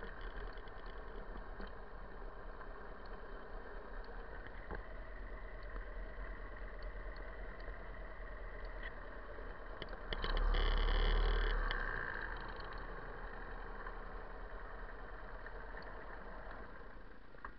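Buell XB9SX's air-cooled V-twin engine running at low revs, heard from the rider's seat, with a louder rush lasting about two seconds roughly ten seconds in.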